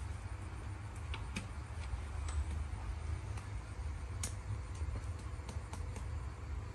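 Small wet clicks of a baby monkey sucking his thumb, coming irregularly with the sharpest about four seconds in, over a steady low rumble.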